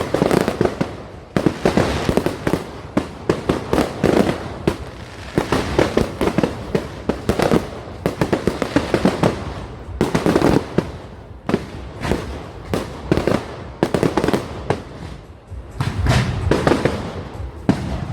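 Fireworks and firecrackers going off without a break: a dense run of sharp bangs and crackles, several a second, with louder clusters now and then.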